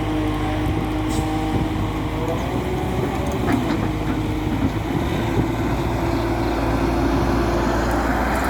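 Tata Hitachi EX200 Super excavator's diesel engine running steadily under work, its hum stepping up a little in pitch about two and a half seconds in, with a few faint clanks.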